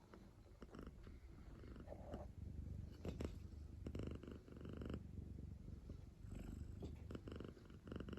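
A napping cat purring, the low rumble swelling and fading in stretches of about a second, several times over, in time with its breathing.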